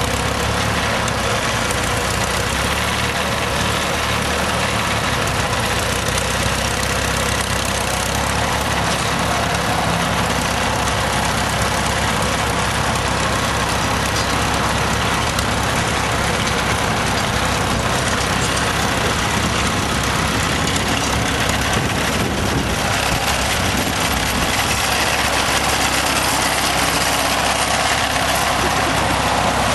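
Vintage Case tractor engine running steadily as the tractor pulls a trailed plough.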